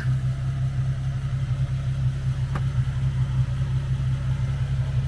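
A steady low mechanical hum with a fast flutter, like an engine idling, with a single short click about two and a half seconds in.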